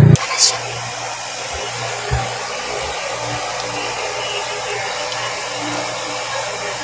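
Steady rushing, hissing noise of moving air, even throughout, with a soft low knock about two seconds in.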